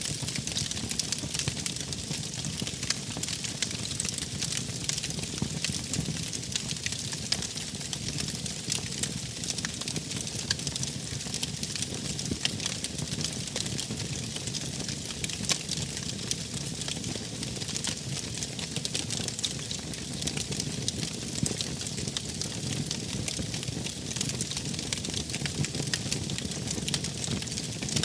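Wood fire burning in a fireplace, with dense small crackles and pops over a steady low rumble of the flames.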